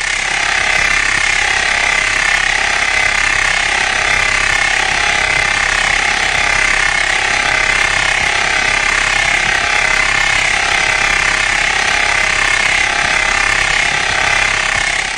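A 6309 deep groove ball bearing with a damaged inner ring, running at 2000 rpm under a 20 kN load, picked up through an SKF electronic stethoscope. It makes a steady, even rushing noise that fades in at the start and out at the end.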